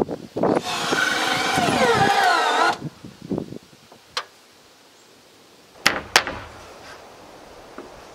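Power drill running under load into wood for about two seconds, its whine falling in pitch as it bites, while fastening a 2x6 collar tie to the rafters. Then a few sharp knocks on the wood, two close together near the end.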